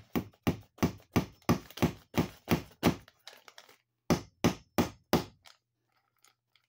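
Claw hammer striking a cable staple into a wooden stud to hold Romex cable, a run of sharp strikes at about three a second, a pause of about a second, then four more.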